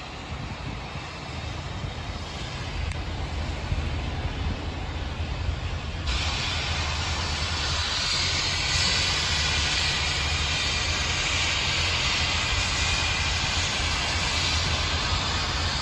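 Steam locomotive approaching, a low rumble that grows slowly louder. About six seconds in, a steady hiss of steam sets in and carries on over the rumble.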